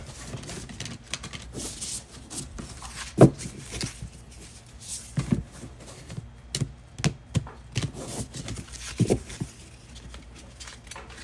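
A tarot deck being shuffled by hand: irregular card flicks and taps with a few soft knocks, the loudest about three seconds in.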